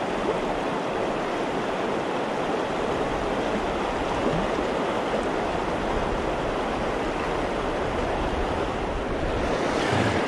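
River current rushing over rapids close by, a steady, even rush of water.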